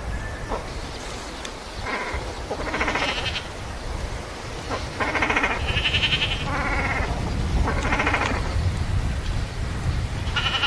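Waterfowl calling: about seven drawn-out calls, each about half a second long and rich in overtones, spaced irregularly, over a steady low rumble.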